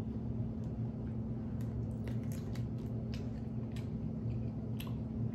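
A person chewing and biting food close to the microphone, with short wet mouth clicks scattered through, over a steady low hum.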